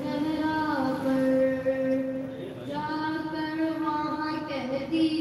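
A single voice chanting an unaccompanied devotional recitation in long held notes, pausing for breath about halfway through before starting a new phrase.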